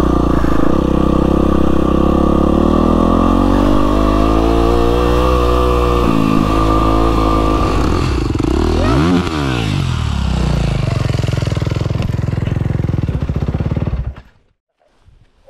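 Yamaha WR450F's single-cylinder four-stroke engine running as the dirt bike is ridden slowly along a trail, its pitch rising and falling with the throttle. The engine sound stops abruptly about a second before the end.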